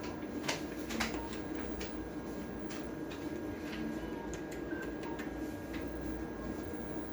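Steady low room hum with scattered light clicks, the two clearest about half a second and a second in.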